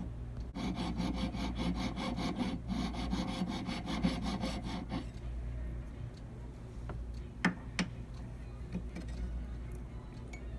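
Jeweler's saw blade cutting a notch into a gold band ring with rapid, even strokes. The strokes pause briefly once, then fall quieter about halfway through, with two sharp clicks a little later.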